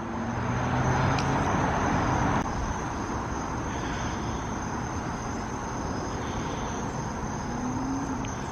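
Jet airliner on approach passing overhead, a broad rumble that is loudest in the first couple of seconds, drops abruptly, then carries on as a steady lower rush. A constant high trill of crickets runs underneath.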